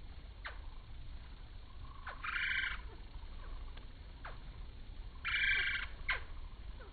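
Hummingbirds at a feeder, slowed four times and so lowered in pitch: a scatter of short falling chirps and two louder buzzy bursts about three seconds apart.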